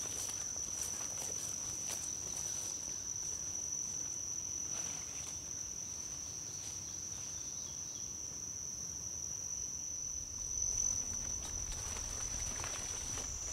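Insects trilling in one steady, unbroken high tone, with faint rustles of footsteps through undergrowth.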